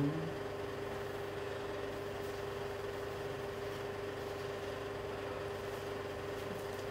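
A steady background hum with one faint constant tone and an even hiss, unchanging throughout.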